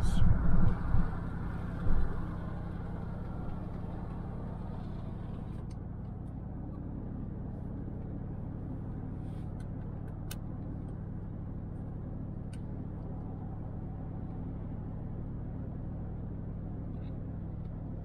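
Steady low drone of a 2002 Chevrolet Avalanche pickup driving at speed, engine and road noise heard from inside the cab. There are a couple of louder thumps in the first two seconds, and a few faint clicks later on.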